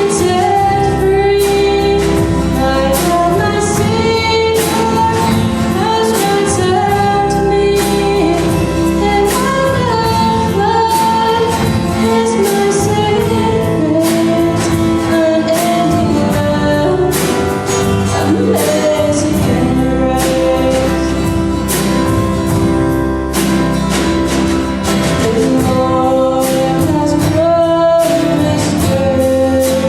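A worship song: a female voice sings a melody over instrumental accompaniment with a steady beat.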